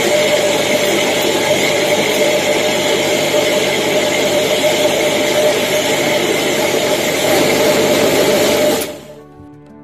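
Electric mixer grinder running at full speed with a steady whine, grinding soaked urad dal with very little water in its steel jar; it is switched off near the end and the sound cuts off quickly.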